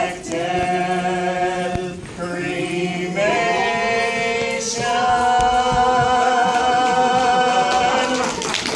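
A small mixed group of voices singing a cappella, closing the song with a few sustained notes and then one long held final chord that cuts off near the end, as applause starts.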